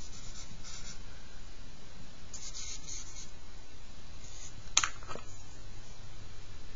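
Charcoal stick scratching across paper in short bursts of strokes, then one sharp click just before the five-second mark.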